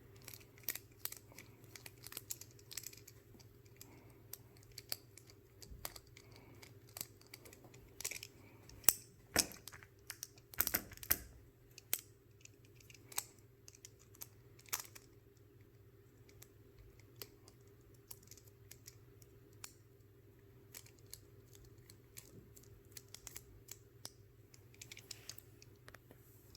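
Small irregular clicks and scrapes of a T6 Torx driver turning out the tiny body screws of a Benchmade Mini Bugout folding knife, with the loudest handling clicks about halfway through, over a faint steady hum.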